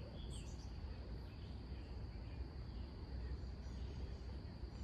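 Faint riverside ambience: a steady high insect drone with a few faint bird chirps over a low rumble.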